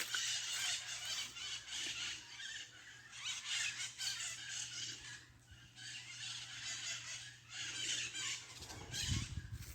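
A flock of maritacas screeching in the trees, with many overlapping shrill squawks coming in dense, uneven bursts. A brief low thump sounds near the end.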